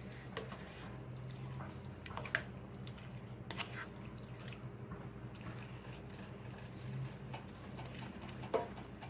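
Wooden spatula stirring a thick chicken-and-gravy filling in a cast iron skillet: soft wet squelches with a few short scrapes and taps, the loudest near the end, over a steady low hum.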